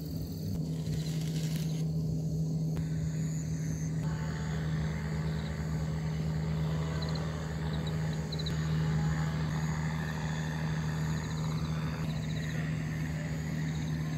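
A steady low hum under changing background noise, with a few faint high ticks.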